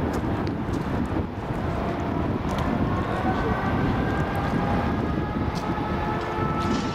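Liebherr R 995 Litronic hydraulic excavator running: a steady low engine rumble, with a faint whine that creeps slowly up in pitch from about three seconds in, and some wind on the microphone.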